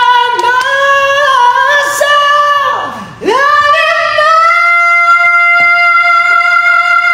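A single voice singing unaccompanied. About three seconds in, the pitch swoops steeply down and back up. It then holds one long, steady high note.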